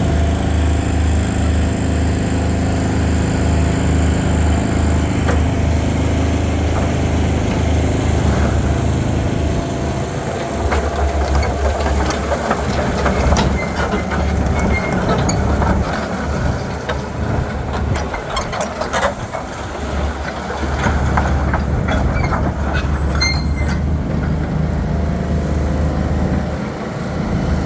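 Hitachi EX120 tracked excavator's diesel engine running, its note changing about ten seconds in. Through the second half come scattered knocks and clanks and short high squeaks of the machine working.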